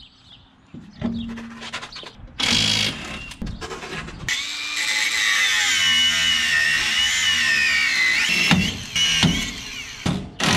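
Power tool cutting through old leaf-spring U-bolts, most likely an angle grinder: a loud high whine that wavers and sags in pitch as the cut loads it. Two sharp knocks follow near the end.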